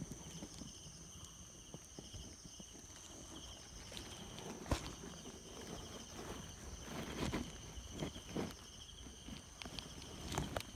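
Quiet, slow footsteps rustling through leaf litter and undergrowth, with one sharp snap a little before halfway and a cluster of steps late on. Behind them, a steady high insect chirring in two pitches.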